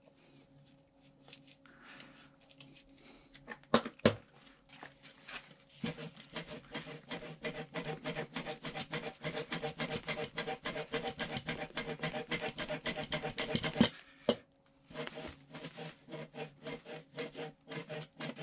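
Freshly greased suspension seatpost being pumped up and down by hand in a fast, even rhythm of about five strokes a second, starting about six seconds in, pausing briefly, then resuming; it springs without squeaking. A couple of sharp clicks come shortly before the pumping starts.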